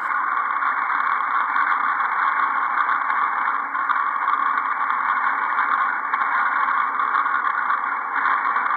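Vacuum cleaner motor running steadily at high speed with a CD bolted to its shaft. The CD wobbles on slightly loosened bolts, setting the rig vibrating.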